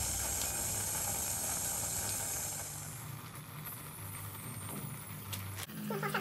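Steady hiss of stovetop noodle cooking, fading about three seconds in, with a few light clicks near the end.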